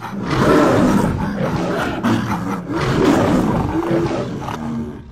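Wild-animal roar sound effects, several loud roars one after another, dying away shortly before the end.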